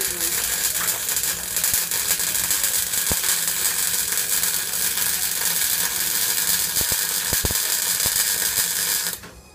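MIG welder arc crackling and hissing steadily while welding a steel car chassis rail; the arc cuts off suddenly near the end.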